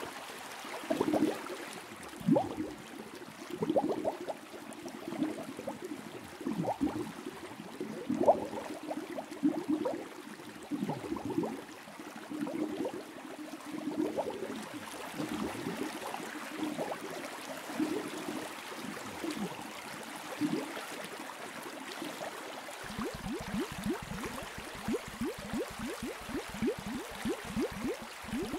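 Aquarium water bubbling and gurgling: irregular bubbles over a faint hiss, turning into a quicker, denser stream of bubbles about three-quarters of the way through.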